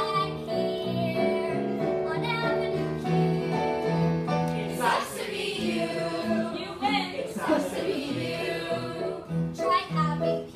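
Children singing a musical-theatre song with instrumental accompaniment.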